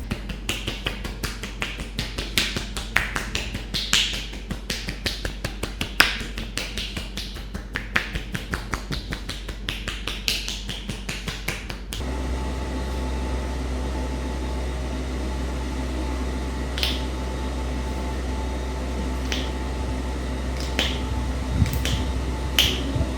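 Barber's hands in a massage: quick slaps and claps, three or four a second, for about half the time. Then the background changes suddenly to a steady hum, and single sharp cracking snaps come a second or two apart.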